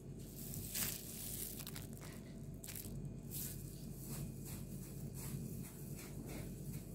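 Disposable plastic gloves and breadcrumbs rustling as a mashed-potato croquette is rolled and pressed in a bowl of breadcrumbs: a run of short scratchy rustles, the loudest about a second in, over a low steady hum.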